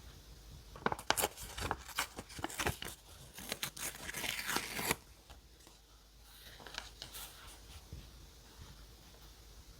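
Paper tearing and rustling at close range: a run of rough tearing strokes from about a second in until halfway, then softer paper handling.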